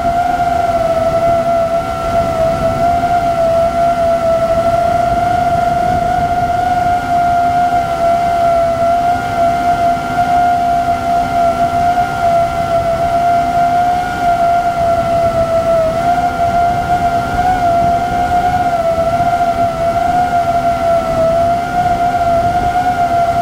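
DJI FPV drone's motors and propellers whining steadily in flight, a held single pitch that wavers slightly with throttle, over a rush of air noise.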